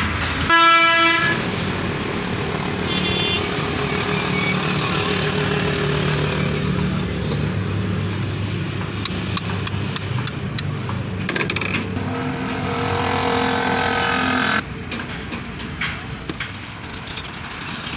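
A motor vehicle engine running steadily, opening with a short loud horn-like tone about half a second in; the engine noise drops sharply a few seconds before the end.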